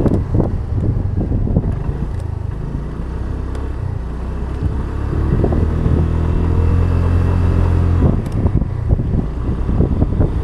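Street traffic rumble, with a vehicle engine running close by from about the middle as a steady pitched hum that ends suddenly about three-quarters of the way through.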